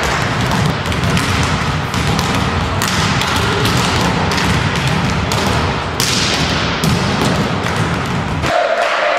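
Volleyballs being hit and bouncing on the court floor during a warm-up: a string of irregular thuds and slaps echoing around a large sports hall. A steady tone comes in near the end.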